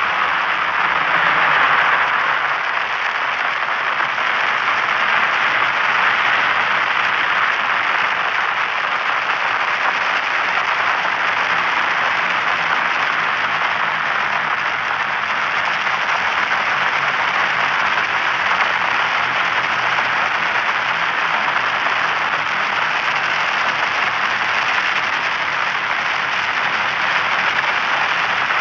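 Radio static from a satellite radio frequency: a dense, steady crackling hiss that keeps an even level throughout.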